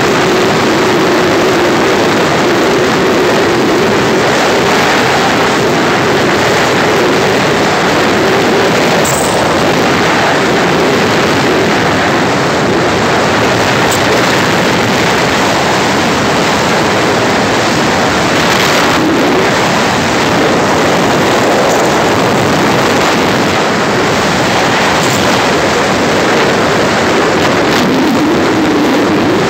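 Steady rush of wind and road noise from a moving vehicle, with an engine hum that wavers in pitch and rises near the end.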